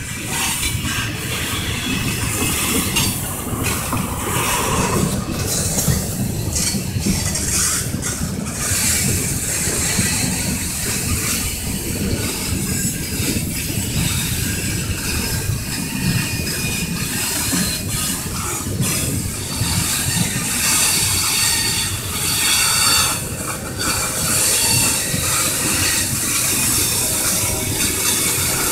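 A freight train's cars rolling past steadily, steel wheels rumbling and clattering on the rails. Thin high metallic squealing from the wheels runs over it.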